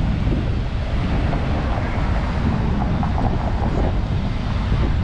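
Wind noise on the microphone over steady city street traffic.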